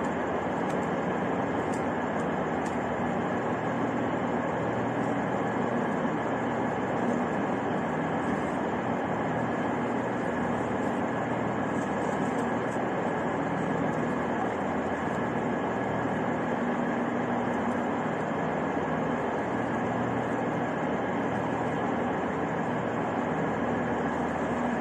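Steady background noise of a railway station hall: an even, continuous rumble with a faint hum, typical of trains and crowd in a large echoing station.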